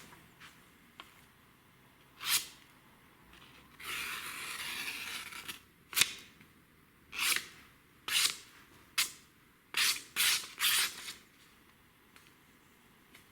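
Steel blade of a Buck 103 knife drawn in short scraping strokes, about nine of them spread out, with one longer stroke of about a second and a half around four seconds in.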